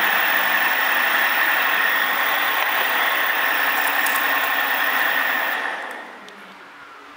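Two hoverboard hub motors spinning unloaded under throttle from dual brushless controllers: a steady whir with a high whine. It falls away sharply about six seconds in.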